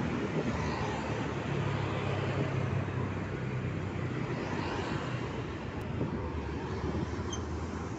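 Motorbike engine running steadily while riding along a road, with traffic and wind noise.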